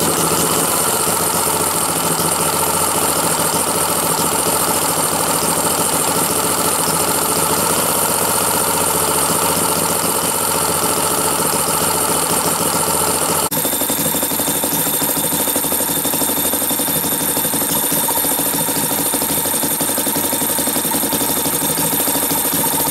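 Home-built single-cylinder two-stroke opposed-piston model engine running steadily and fast on petrol, just started to turn backwards. About halfway through, its tone shifts suddenly.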